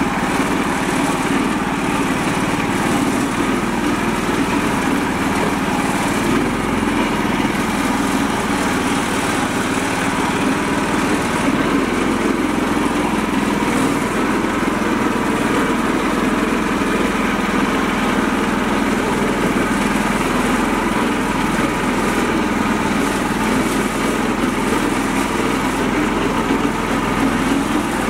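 The small engine of a home-built mini tractor running steadily as it drives along, holding an even, unbroken note.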